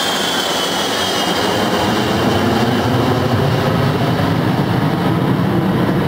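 Boeing 707-138B jet airliner passing low overhead and flying away, its four Pratt & Whitney JT3D turbofans making a high whine that falls in pitch as it recedes. Under the whine is a heavy rumble that builds after about two seconds.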